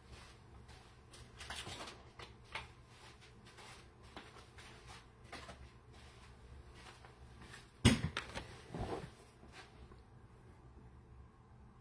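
Scattered faint clicks and rustles over a low room hum. There is one sharp knock about eight seconds in and a softer knock just after it.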